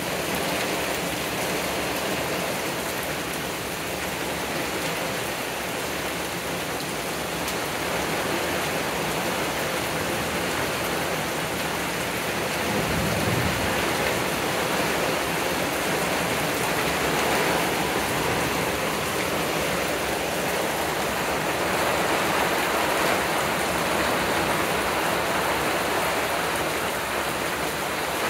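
Heavy thunderstorm rain pouring steadily onto trees, leaves and wet ground. There is a brief low rumble about halfway through.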